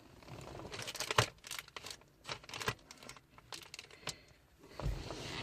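Irregular plastic clicks and crinkling as a car radio's wiring harness and its connectors are handled.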